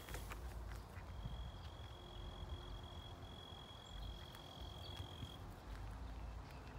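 A steady, high, single-pitched insect trill that breaks off just after the start, resumes about a second in and stops a little after five seconds. Under it come faint low bumps and light crunches from walking on a dirt trail.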